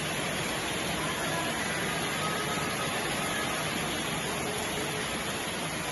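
Steady rain falling: an even hiss with no separate drops or pauses.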